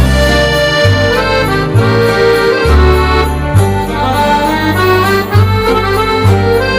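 Instrumental background music: a melody of held notes over a bass line that changes note about once a second.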